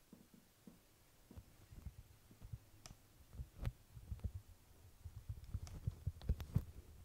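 Soft, irregular low thumps and a few clicks of a handheld camera being moved and handled as it is brought up close to a sleeper, growing busier toward the end.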